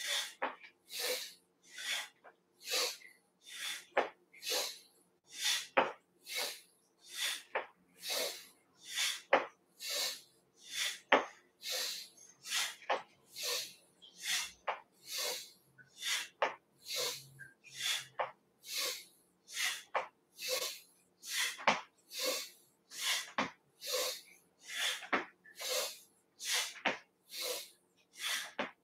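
Rhythmic swishes of arms and clothing from a person swinging the arms back and forth, about two a second, alternating slightly in strength.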